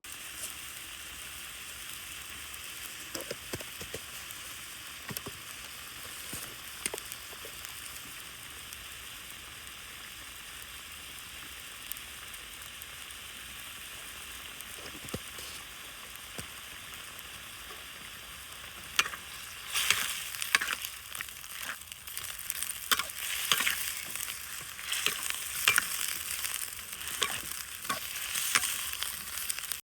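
Food frying in hot oil: a steady sizzle with occasional pops, turning much louder and crackling about two-thirds of the way through.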